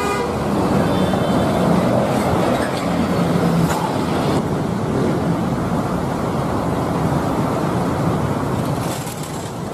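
Large tour buses driving past on a busy street: steady diesel engine and road noise with surrounding traffic, fading near the end.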